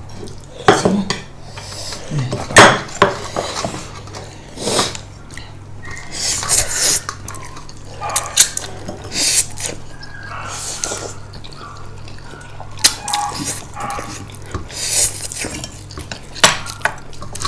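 Cutlery clinking and scraping on plates and bowls during a meal, many separate sharp clicks, over a low steady hum.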